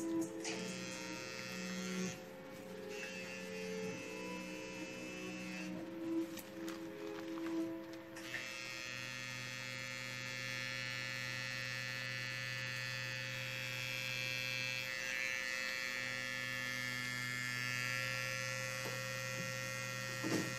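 Electric tattoo machine buzzing steadily as it inks skin, with a brief break about fifteen seconds in. The first eight seconds hold a less even mix of tones.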